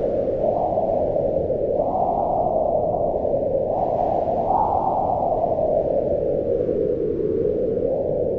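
Howling wind: a steady rushing noise whose pitch rises and falls in slow gusts, higher around two and five seconds in and sinking lower towards the end.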